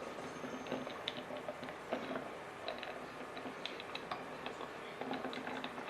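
Irregular light clicks and taps, several a second, unevenly spaced.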